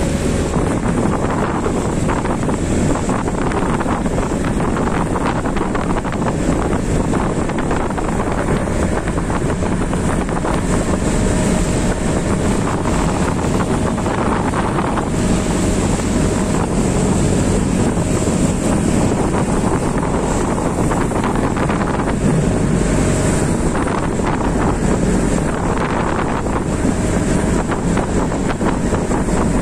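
A boat under way at sea: steady wind buffeting the microphone over the rush of water along the hull.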